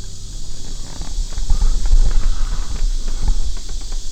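A hiker's footsteps on a forest trail: uneven thuds and scuffs, a few steps a second, over a steady high hiss of insects.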